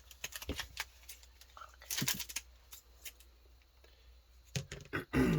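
Foil trading-card booster packs being handled and shuffled, crinkling, with scattered taps and clicks and a few knocks near the end.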